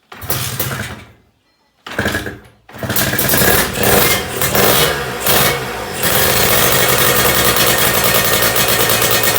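Kawasaki Ninja 150 two-stroke single-cylinder engine being started after a rebuild: two brief bursts that die out, then it catches, is revved up and down a few times, and settles into a steady idle.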